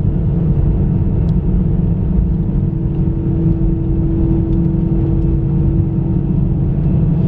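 Cabin noise inside an Airbus A320-214 on its landing roll: a steady low rumble from the aircraft and its CFM56-5B engines, with a steady hum that grows a little stronger around the middle.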